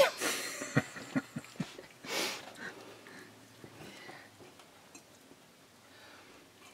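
A knife clinks and taps against a glass baking dish as brownies are cut. There is a sharp clink at the start, a quick run of light taps over the next second and a half, and a short rush of noise about two seconds in. Then the cutting goes on faintly.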